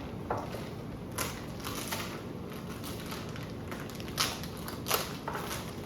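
Plastic packaging wrap being handled and pulled off a model jet part, crinkling in about half a dozen short bursts, the loudest near the end.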